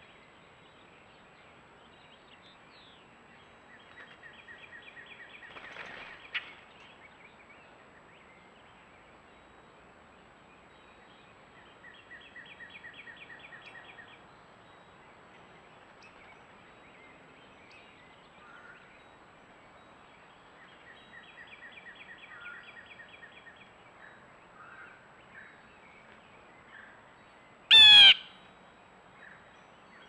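A songbird's rapid trill, about two seconds long, repeats several times with pauses of several seconds between. About two seconds before the end, one loud, harsh call close by, likely a blue jay.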